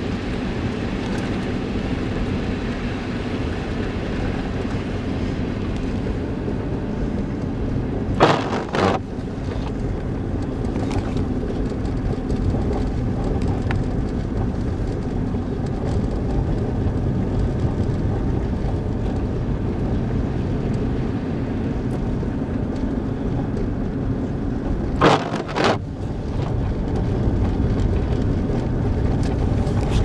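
Steady road and engine noise inside a car cabin as the car drives over a snow-covered road. Twice, about seventeen seconds apart, a short double swish cuts across it.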